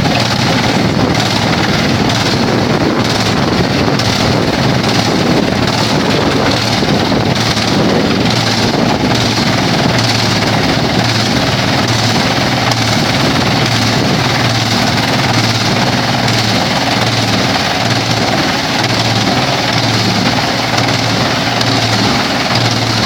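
Vantec PTF600x300/450mm forestry wood chipper running, a loud, steady mechanical din over a low hum.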